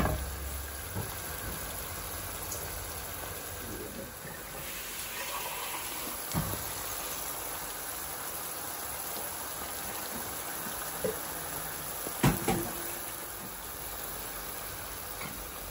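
Spiced masala sauce sizzling and simmering in a frying pan as fried quails are laid into it. A few short knocks sound over the steady sizzle, the loudest about twelve seconds in.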